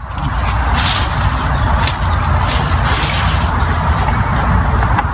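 Sweet potato vines and leaves rustling as they are pulled and cut loose from a trellis, with a few brief snaps, over a steady low rumble.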